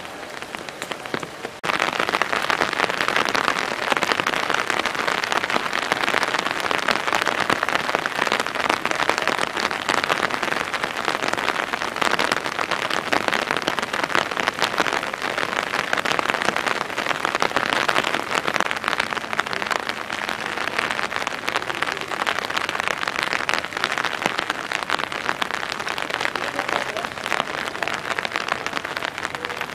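Steady rain pattering, louder from about two seconds in.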